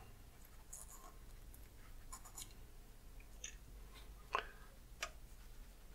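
Faint handling sounds of an activated-charcoal capsule being pulled apart and its powder tipped out over a paper towel, with light rustles and scratches and two small clicks near the end.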